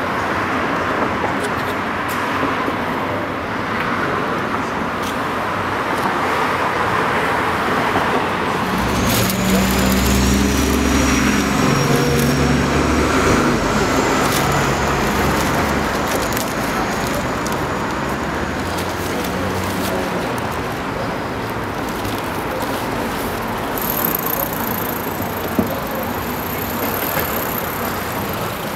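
Street traffic: a steady wash of passing cars, with a louder vehicle engine rumbling past about nine to fifteen seconds in.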